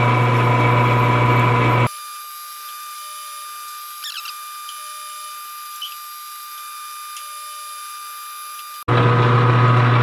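Metal lathe running steadily while a reamer is fed into an oiled bore in a pulley blank, with a low hum and a steady high whine. About two seconds in, the sound drops abruptly to a quieter, thin high whine with the low hum gone. The full lathe sound comes back suddenly shortly before the end.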